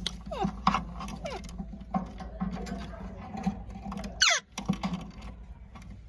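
Ringneck parrots scratching and clicking on a hard surface, with short falling squeaks and one loud falling screech about four seconds in.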